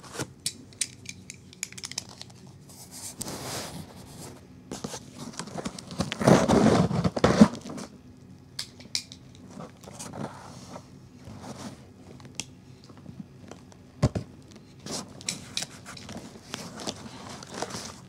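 Paper and cardboard being torn and crumpled as a shipping label is taken off a cardboard box: scattered rustles and small clicks, a louder stretch of tearing about six seconds in, and a single sharp knock about fourteen seconds in.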